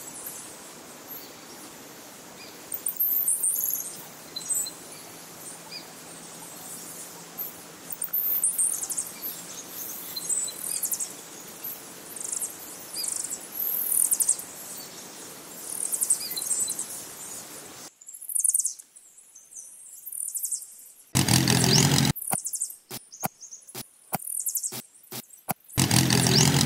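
Small birds chirping and calling over a steady outdoor background. About two-thirds through, this gives way to a loud burst of about a second, a string of sharp clicks and knocks, and another loud burst near the end.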